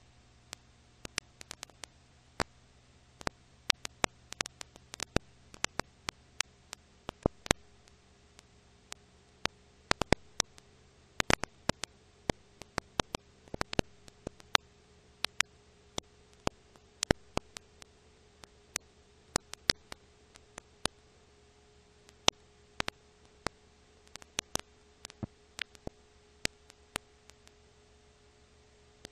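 Irregular clicks and pops over a faint steady hum, with no music or voice: the surface noise of an old film transfer that has no soundtrack.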